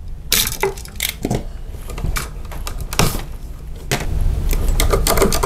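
Hands working NM electrical cable into a plastic junction box with wire strippers: irregular clicks and scraping rustles of wire and tool, busier near the end.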